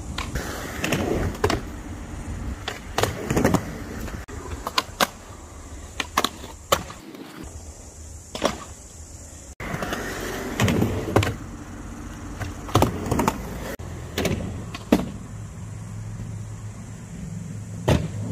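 Skateboard wheels rolling over concrete, with repeated sharp clacks of the board snapping and landing, over and over.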